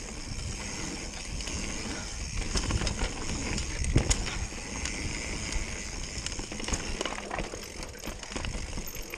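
Mountain bike ridden fast down a dirt trail: steady tyre rumble on packed dirt with frequent clicks and rattles from the bike, and a sharp knock about four seconds in.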